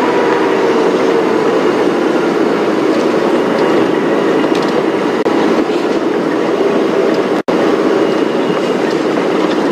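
Open safari game-drive vehicle driving over a rough bush track, its engine running under a steady rattle and jolting of the body. The sound cuts out for an instant about seven and a half seconds in.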